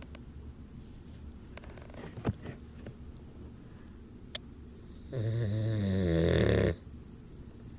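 Boxer dog snoring: one long snore about five seconds in, lasting about a second and a half, its pitch wavering. A couple of faint clicks come before it.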